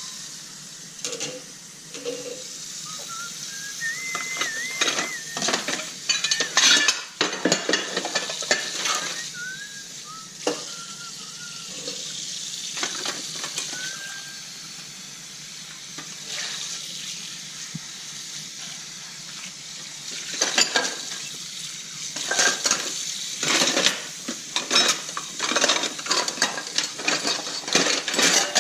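Dishes and cutlery being washed by hand in a sink: irregular clinks and clatters of plates and silverware over a steady hiss of water. The clatter comes in busy runs, with quieter stretches between them, and there are a few thin high tones that waver in pitch in the first half.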